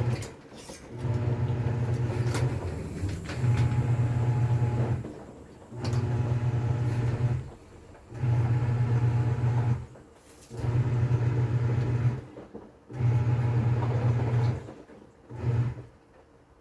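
TCL 7.5 kg top-load washing machine agitating its wash load: the pulsator motor runs in bursts of about a second and a half, pausing briefly between them as it reverses direction, with a low hum. The last burst near the end is short, then the machine goes quiet.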